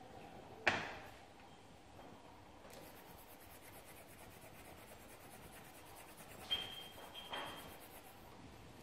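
Coloured pencil scratching faintly on paper in quick, even strokes, with a few sharp clicks: one about a second in and two near the end.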